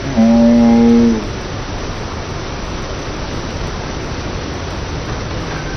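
A single drawn-out, low-pitched voice held for about a second at the start, then a steady rushing noise of water spray as the water-skier is dragged through the water and goes down. The sound is slowed down with the slow-motion picture.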